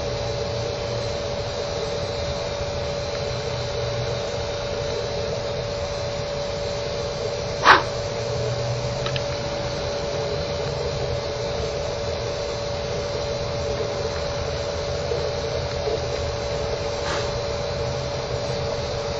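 Steady hiss and low hum with a constant thin tone held throughout, and one short sharp snap about eight seconds in.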